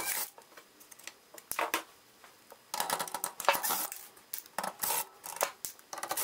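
Cordless drill/driver and small metal screws being worked out of a TV power-supply board, heard as several short bursts of metallic clicking and rattling.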